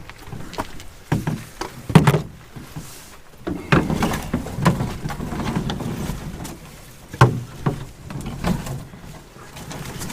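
Footfalls and the load of canoe and gear being carried up a portage trail: irregular knocks and thuds, the sharpest about two seconds in and again past seven seconds.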